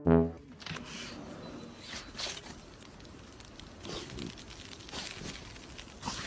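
A brass music phrase cuts off at the start, then faint rustling and scuffing: soft, uneven scrapes about a second apart.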